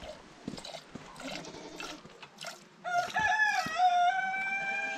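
Goat milk squirting by hand into a metal pot, soft hissing spurts. About three seconds in, a rooster crows: a few wavering notes, then one long held note that falls away at the end. The crow is the loudest sound.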